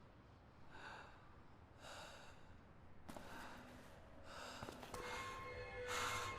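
Faint, soft breaths or pants, about one a second, and a quiet music drone comes in near the end.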